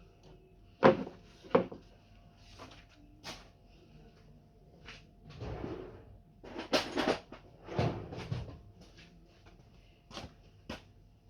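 A string of hard knocks and clatters, like objects being handled and set down. Two loud, sharp knocks come about a second in, a longer run of rattling and clattering follows in the middle, and two lighter clicks come near the end.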